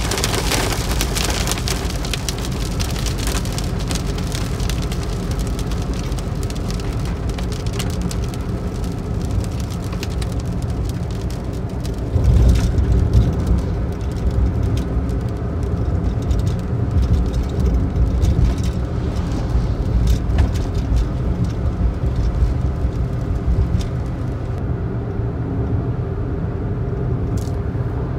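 Car cabin sound while driving in rain: raindrops pattering on the windscreen and body over the steady rumble of road and engine noise. The rain thins out over the second half, leaving mostly the low road rumble, which grows louder about halfway through.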